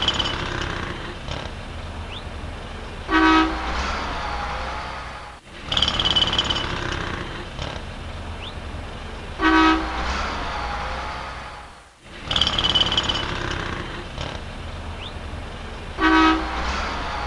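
City street traffic with a steady low rumble, and a car horn giving a short honk about every six and a half seconds, three times, as the same stretch of street sound repeats.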